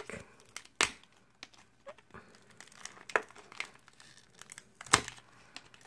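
Plastic booster pack wrapper crinkling and crackling in the fingers as its sealed edge is picked at and worked to tear it open. The pack is proving hard to open. Scattered sharp crackles, the loudest about a second in and near the end.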